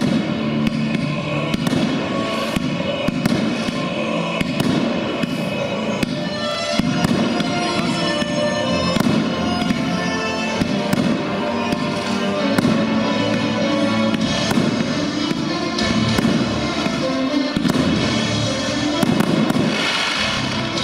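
Aerial fireworks bursting with repeated bangs and crackle, over music.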